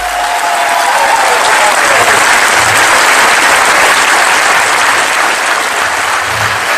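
Audience applauding loudly, building over the first second or two and then holding steady, in response to the punchline of a story.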